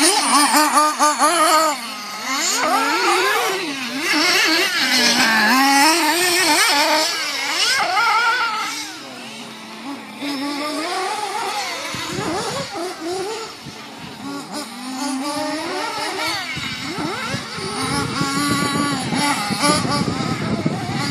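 Radio-controlled off-road buggy's small motor running at high pitch, revving up and down repeatedly as the car speeds up and slows around the track. It is quieter for a few seconds around the middle, then louder again.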